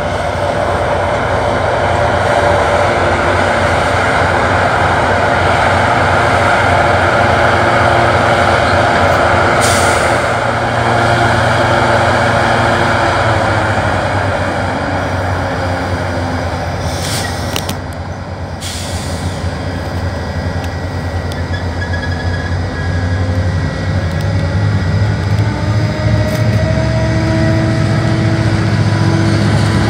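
GO Transit diesel commuter train at the station platform, its locomotive engine running with a steady low hum, with short sharp air-brake hisses about ten seconds in and again around seventeen to eighteen seconds in.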